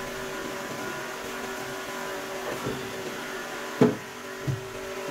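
Steady machine hum made of several constant tones. A sharp knock comes about four seconds in, followed shortly by a softer thump.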